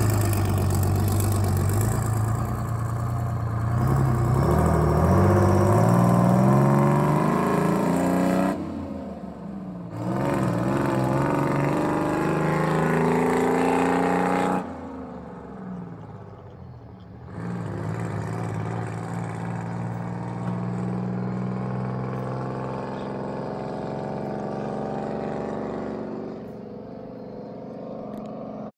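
Bus's Detroit Diesel engine running through its new 4-inch full-flow exhaust and muffler as the bus pulls away, revving up through the gears. The pitch climbs and breaks off twice at gear changes, then the sound settles and fades as the bus moves off.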